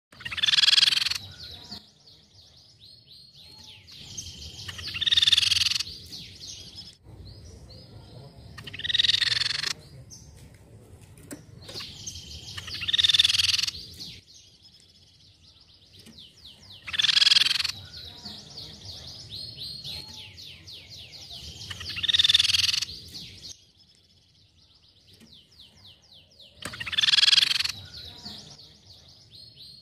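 Crescent-chested babbler (tepus pipi perak) calling: seven loud, short calls about every four to five seconds. Between them runs a quieter, fast, dry chattering trill.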